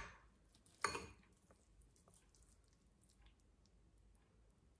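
Near silence, broken about a second in by one brief soft scrape as a wooden spoon works moist cheese curds out of a fine metal strainer, followed by a few faint ticks.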